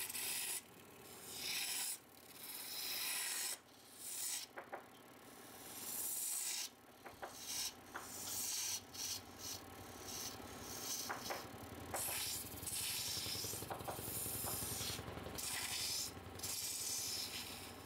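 Wood being cut or sanded on a spinning lathe: a hissing scrape that comes in repeated passes of one to two seconds, with short breaks between them.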